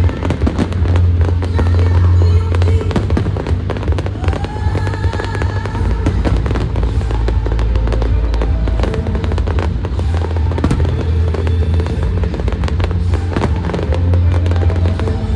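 Fireworks going off in rapid bangs and crackles, mixed with loud show music with a heavy bass.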